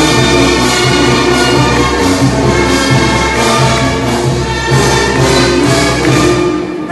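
Orchestral music with brass over a steady, regular beat.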